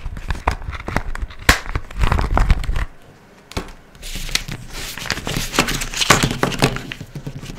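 Clear plastic packet crinkling and crackling as it is handled and pulled off a set of plastic highlighter markers, with sharp clicks. After a short lull about three seconds in, there is denser crinkling and the light clatter of the plastic markers being gathered up.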